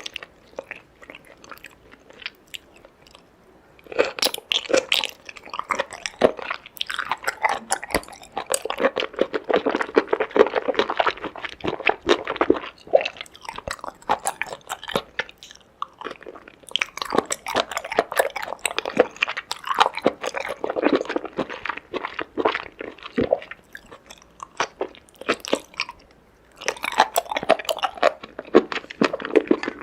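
Close-miked eating of seafood: crunching and wet chewing in bouts. There is a quiet pause at the start and a shorter one about 24 seconds in.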